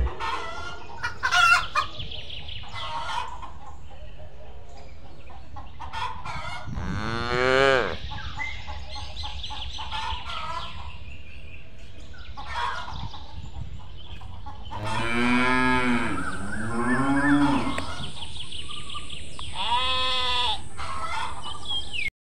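Cows mooing in several long, rising-and-falling calls, with chickens clucking between them.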